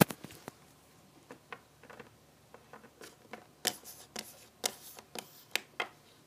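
Littlest Pet Shop plastic figurines being handled and set down on a table: scattered light clicks and taps of plastic on a hard surface, coming thicker and louder in the second half.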